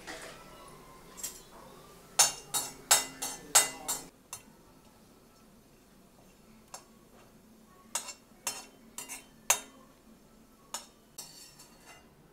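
Steel skimmer clinking and scraping against a steel kadai while stirring small lumps of asafoetida roasting in it. There is a quick run of about six sharp clinks about two seconds in, another run of about five near the middle, and a few lighter ones near the end.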